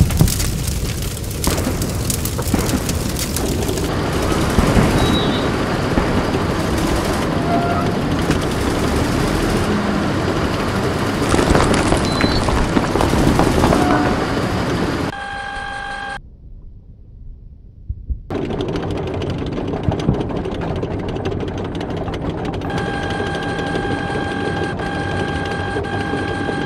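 Battle sound effects: a dense, continuous din of machine-gun fire and gunshots with booms. The din drops out suddenly for about two seconds midway, and a steady tone sounds over it in the last few seconds.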